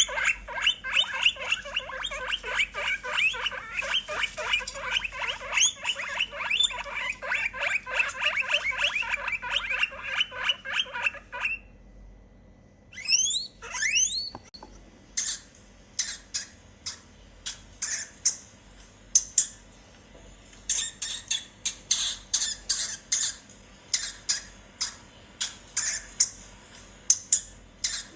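Small animals squeaking. A fast, continuous run of squeaks lasts about eleven seconds, and after a short pause come a few sweeping high calls, then a series of sharp, high chirps about twice a second.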